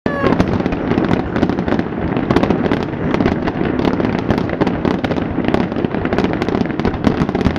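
Fireworks grand finale: a rapid, continuous barrage of bangs and crackles over a steady rumble.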